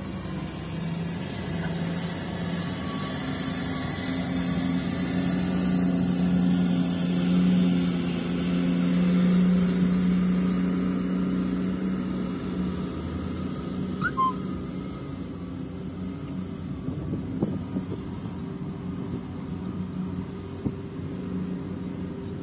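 The diesel engine of an L&T (Poclain) 300 hydraulic excavator runs under load as it digs and loads a tipper truck. Its steady drone grows louder for a few seconds around the middle as the full bucket is lifted and swung over the truck. A brief high chirp comes about two-thirds of the way through.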